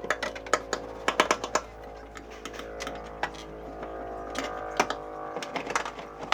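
Irregular sharp clicks and taps, several a second, from hands working on a car door panel during sound-deadening work, over soft background music with sustained tones.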